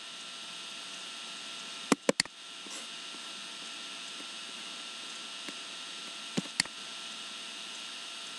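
Computer mouse clicking: three quick clicks about two seconds in and two more about six and a half seconds in, over a steady hiss and mains hum.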